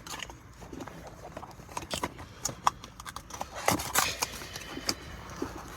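Cardboard cologne box being handled and opened by hand: irregular clicks, taps and light scraping of packaging.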